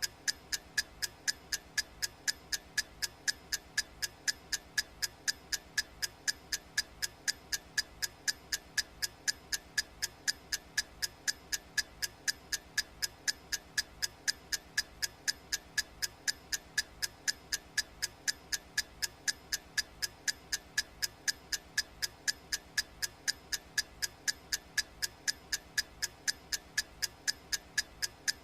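Clock ticking sound effect on a countdown timer: sharp, even ticks, about two a second, at a steady pace.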